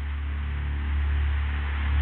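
Low, steady droning hum with a hiss over it, the dark ambient score of a horror film.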